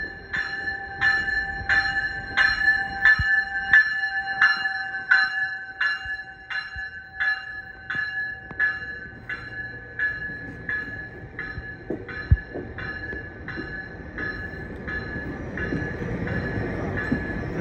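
GO Transit train's bell ringing in an even rhythm, a little under two strokes a second, as the bilevel train rolls slowly past. The rumble of the coaches rises near the end.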